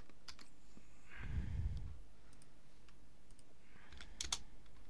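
A few sparse clicks of computer keys, with a soft low thump about a second in and a quick cluster of louder clicks near the end.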